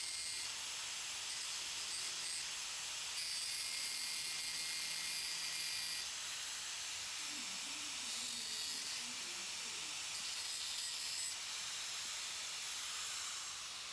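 Power cutting tool running steadily as it cuts small notches into a steel repair panel: a high-pitched hiss with a faint whine, changing level abruptly several times.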